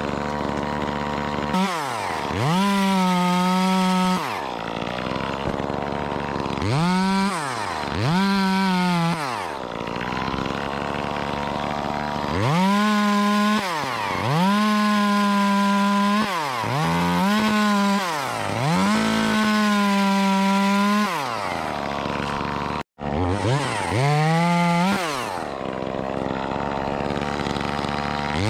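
Chainsaw running, revved up to full speed and let back down to idle again and again, with a brief cut-out partway through.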